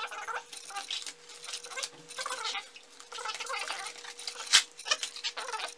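Plastic packaging crinkling and rustling as a wrapped package is cut open with scissors and handled, with many small clicks and one sharp, loud click about four and a half seconds in.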